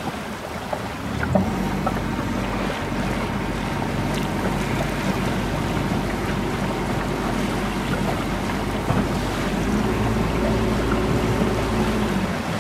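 Outboard motor of an inflatable coach boat running steadily at low speed, louder from about a second in, with water washing past the hull and wind on the microphone.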